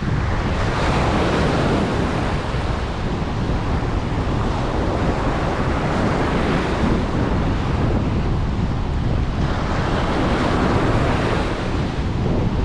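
Ocean surf on a beach: waves breaking and washing up the shore in a continuous rush, swelling louder every few seconds as each wave comes in.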